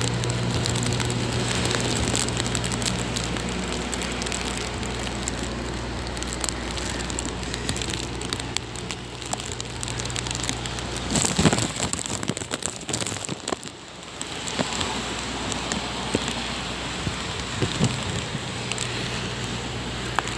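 Heavy rain coming down hard in gusty storm wind, a dense crackling patter of drops, with a louder clatter about eleven seconds in. A steady low hum runs under it and drops out for several seconds midway.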